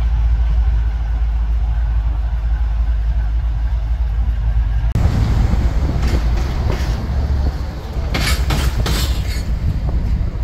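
GE ES44AC diesel locomotive running light past, a steady low rumble. About five seconds in the sound changes abruptly to a louder, noisier mix heard from a moving car, with several brief bursts of noise near the end.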